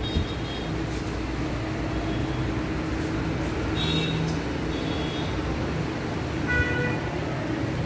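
Steady low machine hum over a constant hiss, with brief faint high voices about four seconds in and again near the end.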